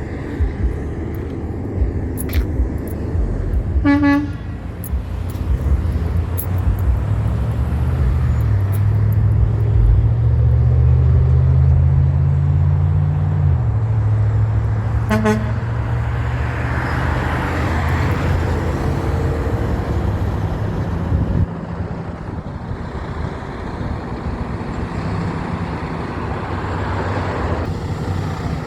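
A heavy truck's engine runs loud and low, its note climbing in pitch for several seconds and then dropping about halfway through. A horn gives two short toots, about four seconds in and again about eleven seconds later, over traffic noise.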